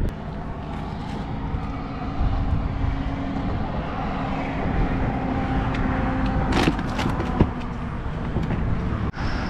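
Road traffic passing on a highway bridge: a steady rush of tyres and engines with a low rumble. A few sharp clicks come about two-thirds of the way through.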